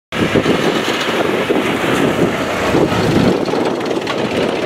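Farm tractor running while it hauls a trolley loaded with sacks along the road, its engine noise mixed with wind buffeting the microphone. The noise is loud and steady throughout.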